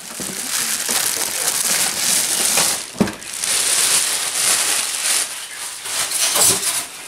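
Clear plastic wrapping bag rustling and crinkling as it is pulled off a new inkjet printer and bunched up, with one sharp click about three seconds in.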